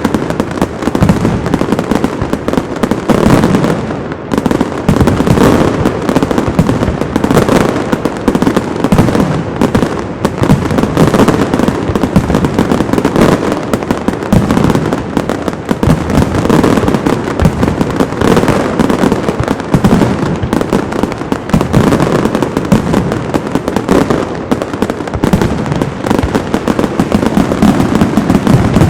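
Castillo aerial fireworks display by Pirotecnia Zaragozana: a dense, unbroken barrage of loud bangs and crackles, shell after shell with hardly a pause.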